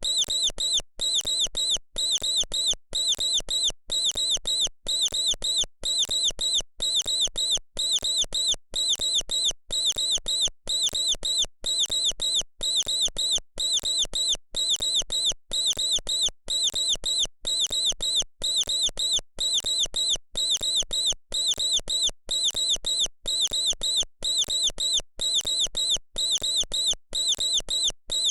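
Mouse squeaking: short, high squeaks in quick clusters of two or three, repeating at an even rhythm of about one cluster a second.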